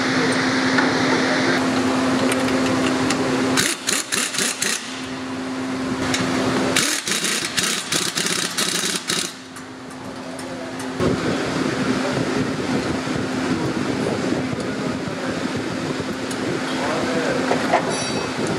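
Workshop sounds: a steady mechanical hum with a constant low tone, broken by bursts of rapid metallic clicking and rattling from hand tools at about four and seven seconds in.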